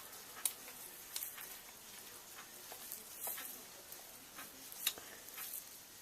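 Faint, scattered clicks and taps of small RC buggy suspension parts and tools being handled during assembly, with one sharper click about five seconds in.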